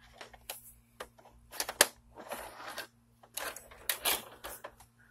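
VHS cassette pushed into the slot of a Magnavox DV220MW9 DVD/VCR combo and taken in by the loading mechanism: a series of clicks, clunks and short mechanical rattles, the sharpest about two seconds in, over a steady low hum.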